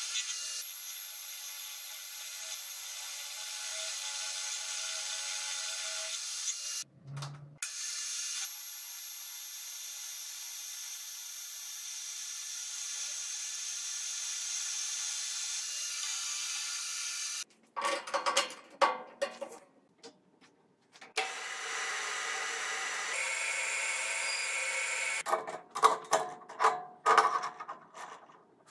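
Metal lathe running steadily while its cutting tool turns a steel bar, shaving off chips, with a thin high whine. About two-thirds of the way through the running stops and gives way to irregular metallic clicks and knocks as the three-jaw chuck is worked with its key.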